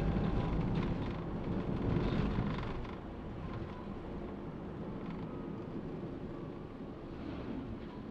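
Driving noise of a Toyota Calya on the move: a steady low rumble of engine and tyres on the road. It is louder for about the first three seconds, then settles to an even level.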